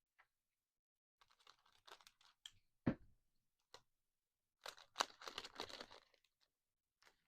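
Foil trading-card booster pack being handled and torn open: faint crinkling, then a sharp tap about three seconds in, then a longer burst of crinkling and tearing near the end.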